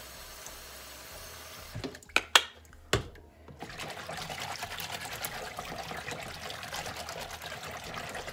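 Kitchen tap water running into a plastic tub in a stainless steel sink. About two seconds in, the flow noise drops and a few sharp knocks sound. Then a hand swishes and splashes through the water, mixing conditioner into it.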